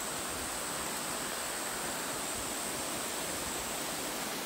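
Steady rushing of water from a rain-swollen creek flowing fast under a railway bridge.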